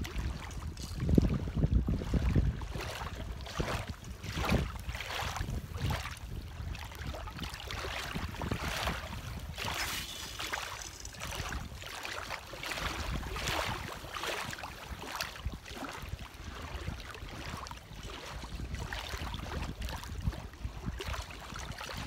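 Choppy lake water lapping and splashing against the shore, with wind buffeting the microphone, the rumble heaviest about a second or two in.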